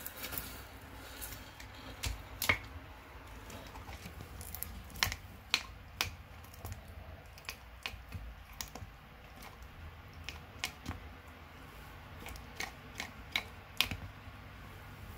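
A tegu crunching a giant African land snail's shell in its jaws: sharp, irregular cracks and clicks come a few seconds apart, some in quick pairs, as the tough shell breaks.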